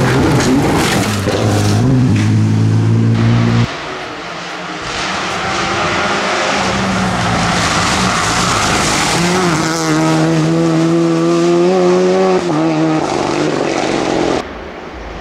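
Rally cars at speed on a gravel stage, engines revving high, their pitch climbing, holding and dropping as they pass. The sound changes abruptly about four seconds in and again near the end as it cuts from one car to another.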